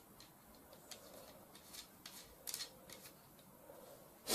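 Faint light metallic clicks and short scrapes from an air rifle barrel and a T-handle hex key being handled, with a sharper click near the end.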